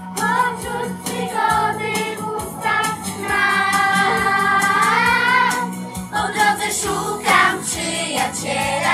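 Music: voices singing together over a steady low accompaniment, with one long held note in the middle.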